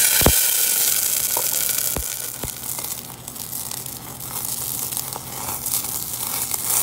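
Brandy poured into a hot saucepan of sautéed shallots hits the pan with a loud sizzle. After about two seconds it eases to a steadier sizzle as the brandy burns in a flambé, with a few sharp clicks near the start and around two seconds in.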